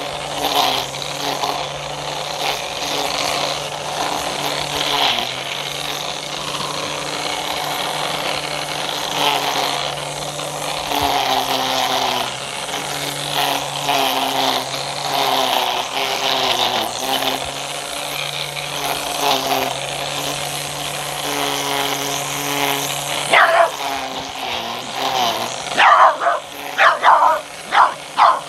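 Black+Decker electric string trimmer running with a steady motor hum, while a small dog barks at it; the trimmer drops away near the end and the dog barks several times in quick succession.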